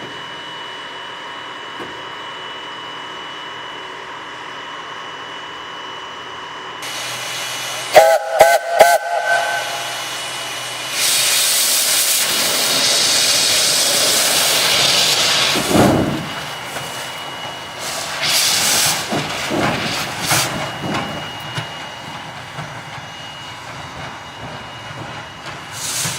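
Baldwin steam locomotive: a few short, sharp whistle toots about eight seconds in, then a loud, steady hiss of venting steam for about four seconds, followed by a low thump and irregular bursts of steam.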